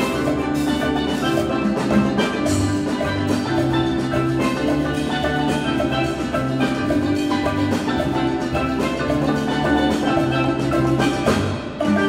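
Steel pan ensemble playing with electric bass guitar, mallet keyboards and drum kit: a steady, driving rhythm of rapid pan strikes over sustained bass notes, with a brief dip near the end.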